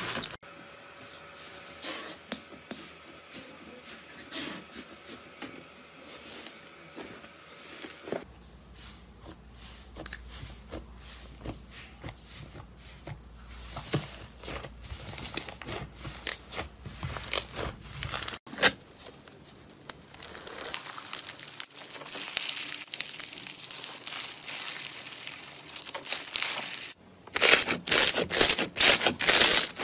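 Hands stretching, squeezing and pressing slime, making crackling, popping and tearing sounds. Near the end come a run of loud squishes, several a second.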